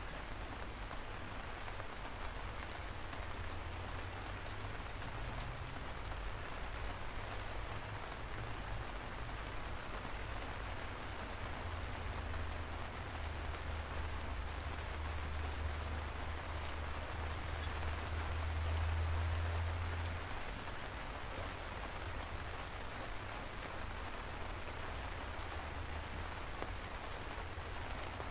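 Steady rain falling, with many single drops pattering throughout. A low rumble swells in the middle, loudest a little before twenty seconds in, then fades.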